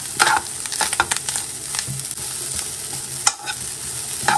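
Grated coconut dry-roasting in a little ghee in a non-stick pan, stirred with a steel spoon: a steady sizzle with repeated scrapes and taps of the spoon against the pan. The coconut is being roasted to drive off its moisture.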